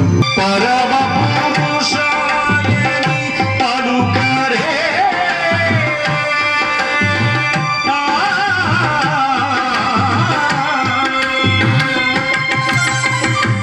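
Tabla playing a steady rhythm under held electronic keyboard chords in a Hanuman bhajan, with a wavering sung melody line over them.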